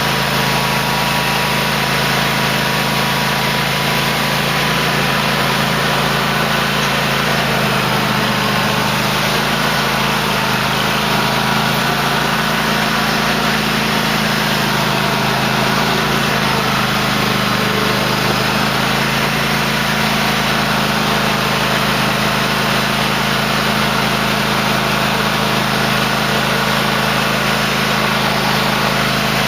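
Cub Cadet LT1050 lawn tractor engine running steadily, its pitch shifting slightly about seven and a half seconds in.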